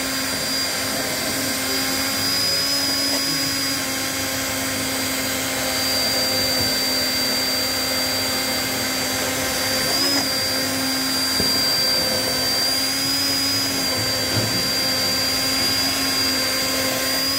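Immersion blender running steadily with a high whine, its blade churning liquid cream and oil in a stainless steel jug to build an eggless mayonnaise emulsion.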